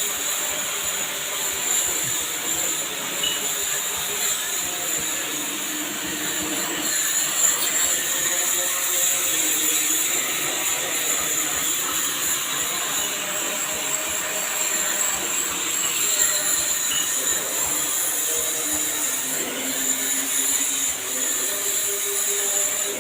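High-pressure washer running and spraying water onto an air conditioner unit during cleaning: a steady hiss of the jet over the constant hum of the pump.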